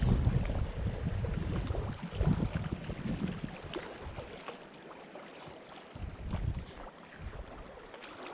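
Wind buffeting the microphone in gusts, a low rumble that drops away for a couple of seconds in the middle, over a steady hiss of sea water.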